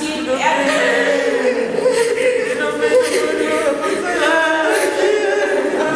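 A choir singing together without instruments.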